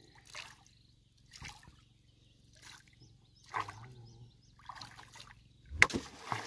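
Water splashing and trickling in short surges about once a second, with a sharp knock a little before the end.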